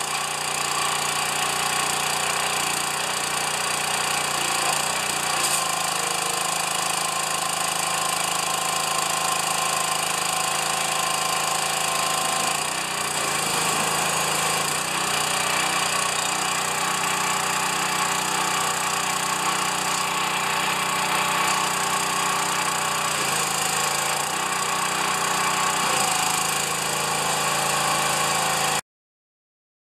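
Gas-engine pressure washer running steadily under the hiss of its spray, the engine's pitch shifting briefly a few times. The sound cuts off abruptly near the end.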